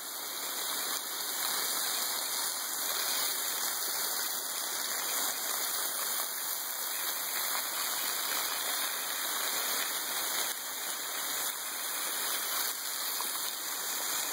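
Waterfall pouring in thin streams close by and splashing onto rocks below: a steady, unbroken hiss of falling and splattering water.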